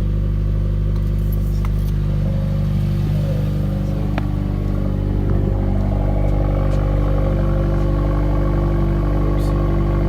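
Subaru WRX flat-four boxer engine idling steadily with a low rumble, running on freshly changed oil.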